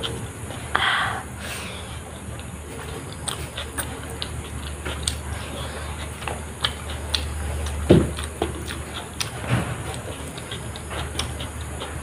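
Close-miked eating sounds: mouth clicks and chewing as rice mixed with ghugni and omelette is eaten by hand, with fingers working the food on a plastic tray. A short hissing noise comes about a second in and two low thumps near the end, over a steady low hum.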